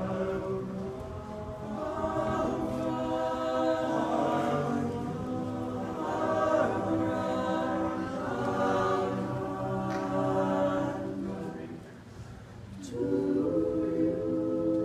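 All-male a cappella group singing in close harmony, holding sustained chords. The sound dips briefly about twelve seconds in, then a new chord comes in.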